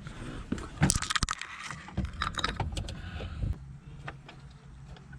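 Metal tools and small parts clinking and clattering under hand work, with several sharp knocks in the first three seconds and lighter clicks after. The sound comes from pressing new, harder short-shifter bushings into place.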